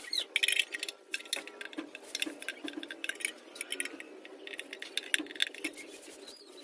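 Irregular metallic clicking and clinking of hand tools and parts being handled, densest in the first second, over a faint steady hum.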